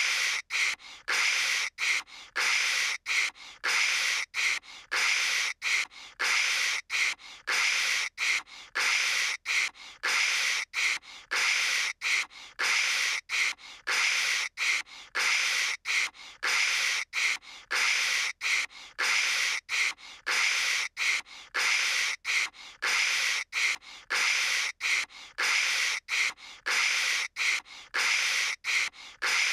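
A person's voice imitating phone static by mouth: a stream of hissing 'kshh' noises, chopped by short gaps.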